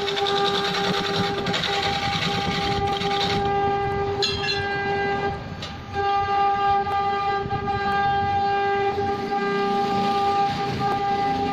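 Wood lathe running with a steady pitched whine, while a hand chisel cuts shavings from the spinning wooden blank with a rough hiss during the first few seconds. The sound briefly drops away a little past the middle and then picks up again.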